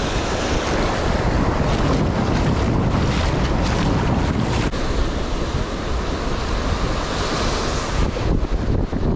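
Wind blowing across the microphone over the steady wash of surf breaking on the beach.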